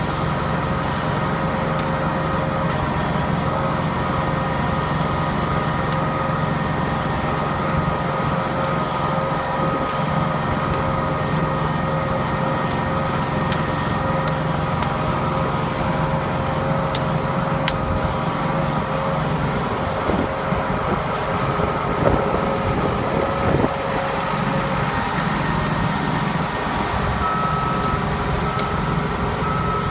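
Diesel paving equipment engine running steadily, with a few knocks partway through, and a reversing alarm beeping several times near the end.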